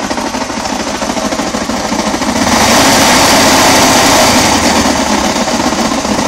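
Suzuki XF650 Freewind's single-cylinder engine running with a fast, even mechanical rattle, louder for about two seconds in the middle. The owner takes it for the sound of a dying engine.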